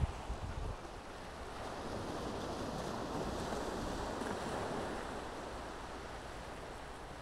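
Sea surf washing onto the shore, swelling over a couple of seconds and then easing off, with wind buffeting the microphone at the start.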